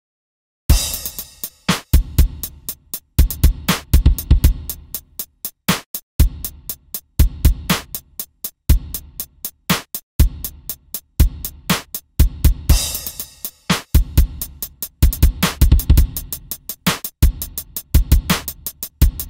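A sampled drum-machine beat played by a browser-based Cables.gl patch: steady repeating kick-drum thumps under sharper, brighter drum hits. It starts a little under a second in, and brighter, denser hits come near the start and again about 13 seconds in.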